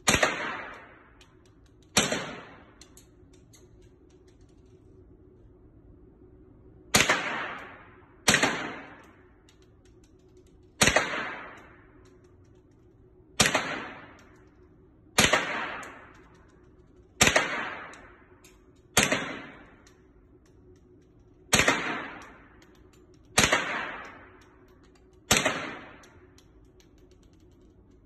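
Assault-style rifle fired single shots in a steady series on an indoor range: twelve sharp shots, mostly about two seconds apart, with a pause of about five seconds after the second one. Each shot rings off the range walls in a short tail.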